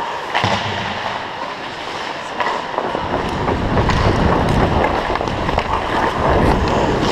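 Ice hockey skate blades scraping and gliding on rink ice, with wind rumbling on the worn action camera as the skater moves fast. The rumble grows heavier from about three seconds in.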